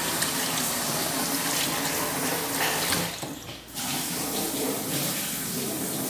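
Water running out of a small washing machine's drain outlet, leaking past a drain valve that does not fully close on the wash setting. The rushing drops out briefly just after the middle.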